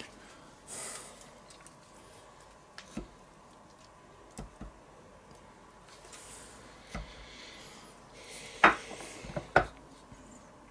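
Kitchen knife knocking and cutting on a wooden cutting board while food is handled and pushed onto a skewer: a handful of separate short knocks and clicks with soft squishy handling between them, the sharpest knock about three-quarters of the way in.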